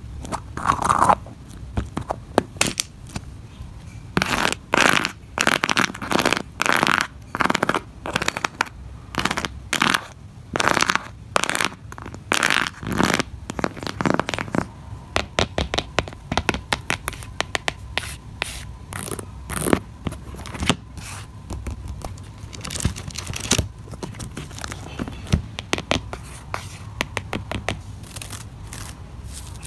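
Long fingernails scratching and flicking objects on a cardboard fidget board. The first half is a run of sharp, scratchy strokes about one a second, over a row of wooden toothpicks. The second half is lighter, scattered taps and scratches.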